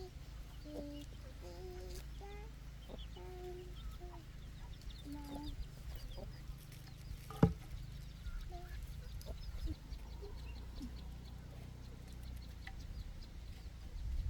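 Domestic chickens clucking, a run of short calls in the first half that thins out later, over a steady low rumble. A single sharp knock about halfway through is the loudest sound.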